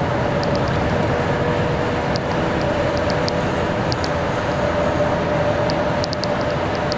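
Steady engine and road noise from a large vehicle driving along a road, with a steady hum and brief clicks now and then, several of them close together near the end.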